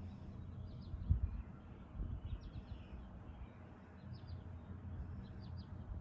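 Small birds chirping in short clusters of quick high notes, repeating about once a second, over an uneven low rumble with a brief thump about a second in.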